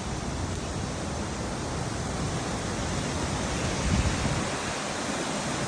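Waterfall rushing steadily. A brief low thump about four seconds in.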